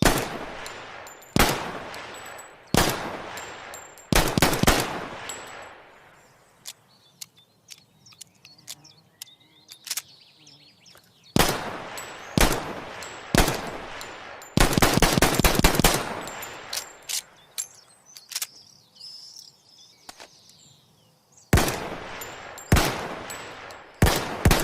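Mauser C96 pistol firing: single shots about a second apart, each with a long echoing tail, broken by quick strings of shots, one about four seconds in and a longer rapid one in the middle. Faint light clicks sound in the gaps between groups of shots.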